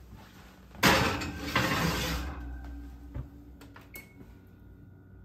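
Oven door opened and a ceramic casserole dish set onto the oven's wire rack: a sudden scraping rush about a second in that fades over a second and a half, followed by a few light clicks.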